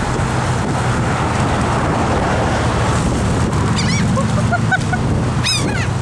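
Laughing gulls calling over steady wind and surf noise. In the second half come a few short calls, then a couple of longer falling calls near the end.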